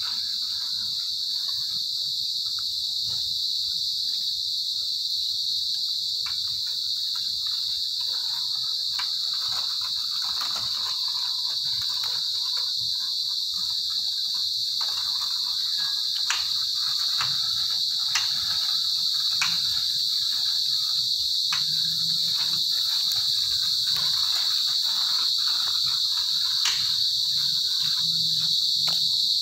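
Steady chorus of night insects, an unbroken high-pitched trill, with a few faint clicks in the second half.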